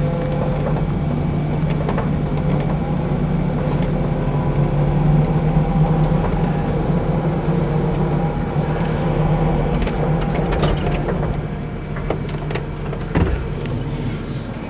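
Skid steer engine running steadily as the machine is driven, with a few short knocks and clanks.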